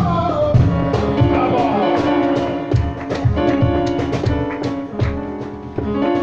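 Live flamenco music: held instrumental notes over a steady beat of rhythmic hand claps (palmas) from the seated singer.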